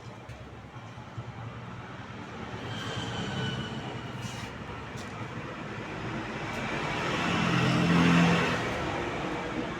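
A motor vehicle passing on a road, its engine and tyre noise growing steadily louder to a peak about eight seconds in, then fading.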